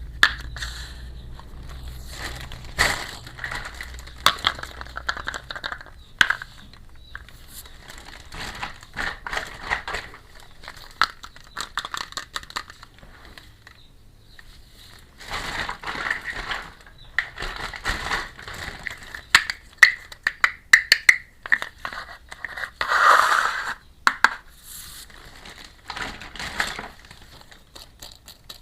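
Plastic packaging crinkling and crackling as it is handled and unwrapped, with many small sharp clicks.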